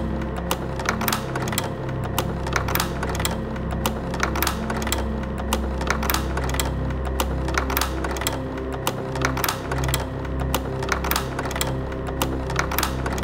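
Music with a fast, dry clicking rhythm, two to three clicks a second, over a steady low hum and short, shifting bass notes.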